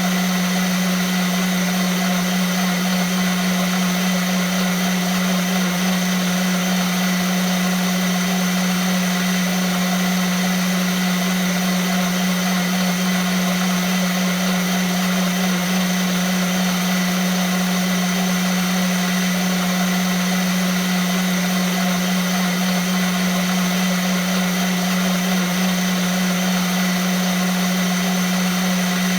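Vitamix blender motor running continuously at a steady speed: a strong low hum with a high whine and whirring noise over it, unchanging throughout.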